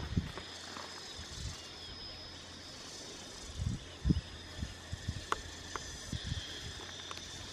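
Bamboo stick jabbing and scraping into soft soil: a few scattered dull thuds, the loudest cluster about halfway through and more near the end, with a couple of sharp clicks in between.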